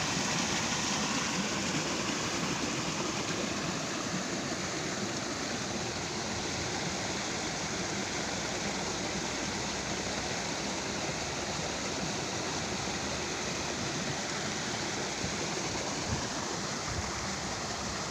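Water flowing and rushing steadily, a constant even noise with no let-up.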